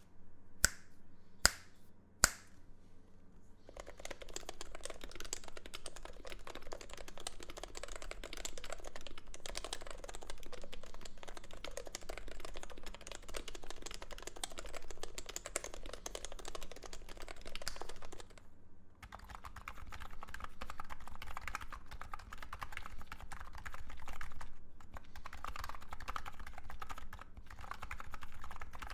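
Fast, continuous typing on electro-capacitive keyboards with Topre-style rubber-dome switches, the muted thock of dome keystrokes. A few single sharp clicks open it; the typing stops briefly about two-thirds of the way in and resumes with a lower, fuller tone, as on a second board.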